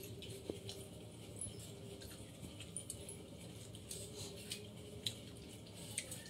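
Eating by hand from steel plates: faint scattered clicks, small clinks and mouth sounds, over a low steady hum.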